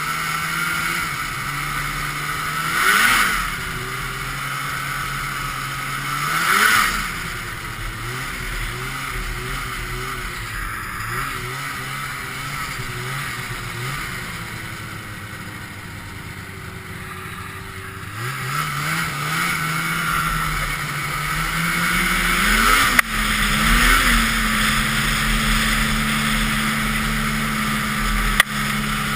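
Ski-Doo Blizzard 5500's 503cc two-stroke engine running under way, revving up briefly twice in the first seven seconds, then easing off and wavering. About two-thirds through it climbs again and holds a steady higher pitch, with two sharp clicks near the end.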